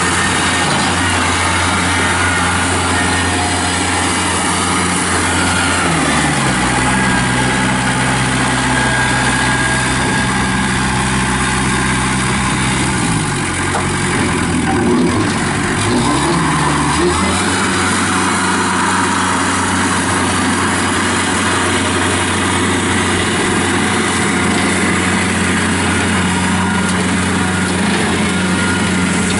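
Kubota B2910 compact tractor's three-cylinder diesel engine running as the tractor drives. Its engine speed drops about six seconds in and comes back up around seventeen seconds in, with a brief dip and rise just before, then runs steadily.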